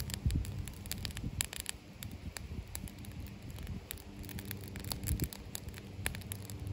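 Small wood fire burning in a perforated tin-can stove, crackling with irregular sharp pops and snaps. A low steady hum comes and goes underneath.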